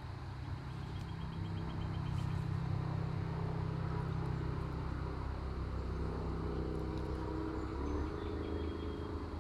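A low, steady motor rumble like a vehicle engine, swelling over the first few seconds and easing near the end, with a short run of fast, faint, high chirping early on.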